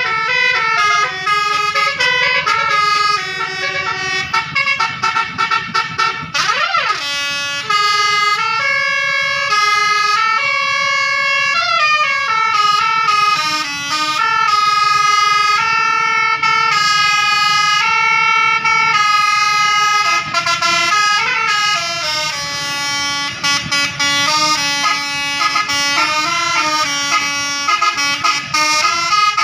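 A Basuri telolet bus horn playing a melody of sustained notes that step from pitch to pitch, with a quick rising-and-falling sweep about six seconds in.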